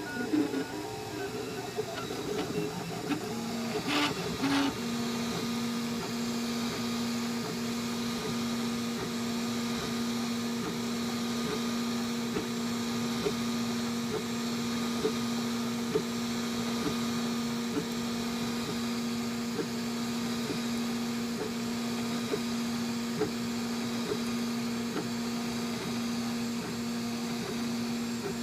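CTC dual-extruder 3D printer printing in ABS: its stepper motors hum a steady pitched tone that cuts off briefly a little more than once a second as the head moves, over the steady whir of its cooling fans. A few clicks come about four seconds in.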